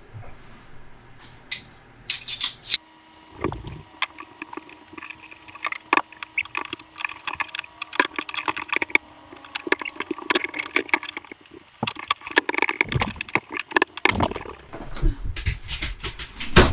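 Metal slip-joint pliers clinking, tapping and scraping against plumbing fittings under a sink as a stuck faucet mounting nut is worked at. It is a rapid, irregular clatter of small knocks, thickest through the middle.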